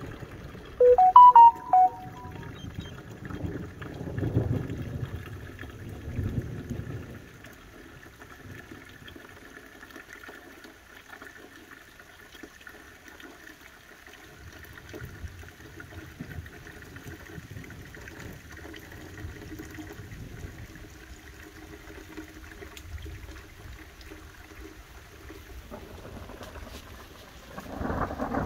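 Distant thunder rumbling low during a thunderstorm, with swells a few seconds in and more faintly later on. About a second in comes a short, loud pitched sound in two parts.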